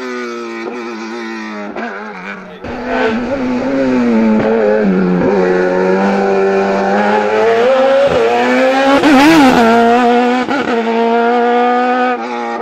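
Sports-prototype race car's engine running hard and close by, its pitch repeatedly climbing and dropping as the car accelerates and lifts through cone chicanes. It grows louder from about three seconds in and is loudest around nine seconds in.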